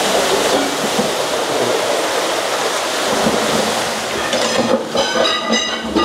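Ball-mill slurry of ground ore and water gushing from the mill's two outlets into concrete tanks with a loud, steady rushing. About four and a half seconds in, the flow eases and some ringing metallic tones come in over it.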